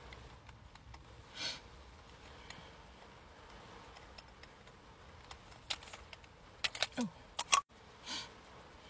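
Quiet handling of a makeup stick: scattered sharp clicks, bunched together near the end, the last one the loudest, and two short soft rubs, over a faint hiss.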